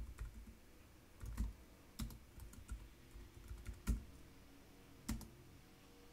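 Typing on a computer keyboard: irregular keystrokes, with a few sharper, louder key strikes standing out among them.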